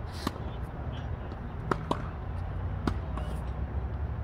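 Tennis ball being hit and bouncing during a rally on a hard court: four sharp knocks, one just after the start, a close pair about a second and a half later, and one near three seconds in, over a steady low rumble.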